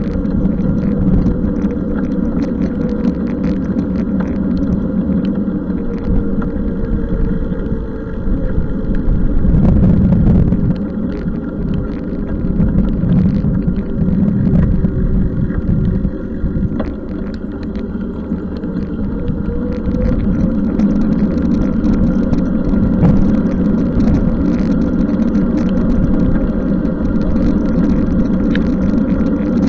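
Noise of a bicycle being ridden in the rain: wind buffeting the microphone and tyres hissing on the wet road, with a steady whine that drifts a little in pitch and scattered light ticks.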